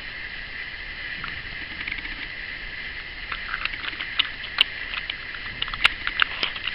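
Small irregular clicks and handling noise from a headless panel pin being fitted into a cordless drill's keyless chuck, getting busier in the second half, over a steady hiss. The drill motor is not running.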